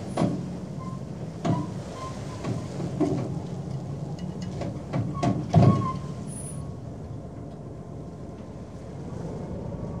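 Trawl gear being lowered: a steady low machinery rumble with irregular heavy metallic clanks and knocks through the first six seconds, the loudest about five and a half seconds in, then only the rumble.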